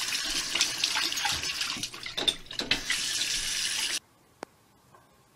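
Bathroom sink tap running, a steady rush of water that cuts off suddenly about four seconds in, followed by near silence with a faint click.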